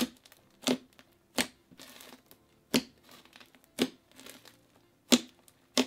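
Hands pressing and squeezing an air-filled, crunchy slime, giving sharp pops and crackles about once a second as the trapped air is squeezed out.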